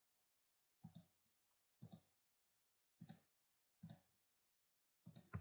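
Faint clicks of a computer mouse button, five of them at about one a second, each a quick double click of press and release, as points are selected one after another in the software.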